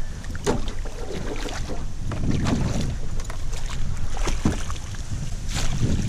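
Repeated knocks and clatter on an aluminium boat, with water splashing at the side, as a hooked zander is brought to the landing net. Wind rumbles on the microphone throughout.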